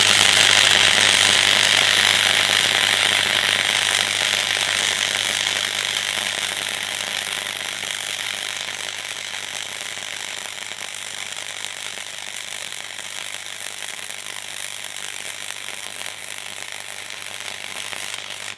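Parkside PFDS 120 A2 flux-core wire welder running a continuous bead: the arc sizzles steadily over a low hum from the welder, slowly getting quieter, and cuts off abruptly near the end.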